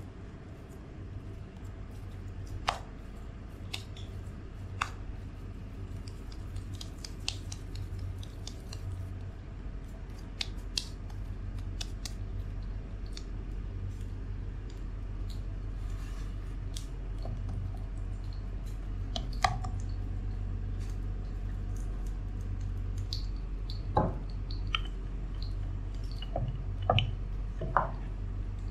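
Oiled hands working a soft, sticky sweet dough in a bowl and on a floured wooden board: handling noise with scattered light clicks and a few sharper taps, over a steady low hum.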